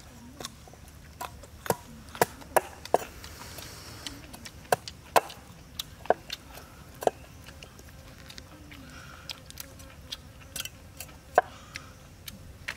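Meat cleaver chopping raw carrots on a wooden chopping board: sharp, irregular knocks, with a pause of a few seconds in the middle.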